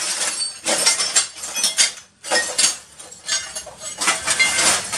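Broken pieces of a smashed TV clinking and rattling in irregular clusters, with a short pause about two seconds in.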